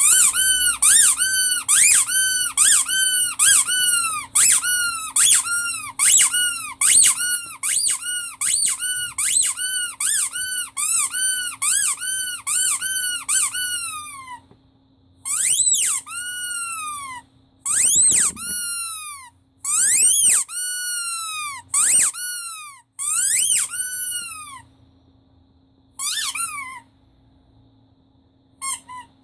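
Rubber squeak toy squeezed over and over. For the first half come rapid squeaks, about two a second, each rising then falling in pitch. After that come slower, longer squeaks that slide down in pitch with pauses between, and a few short quick squeaks near the end.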